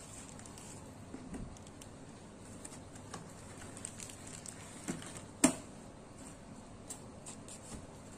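Clear plastic storage drawers being pulled open and handled, with soft scattered taps and rustles and one sharp click about five and a half seconds in.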